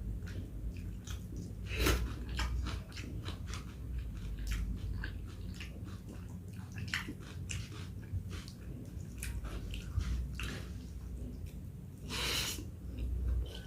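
Close-up wet chewing and mouth smacks of a person eating rice with dal and vegetables, a steady scatter of irregular small clicks, with one louder hissing burst about twelve seconds in.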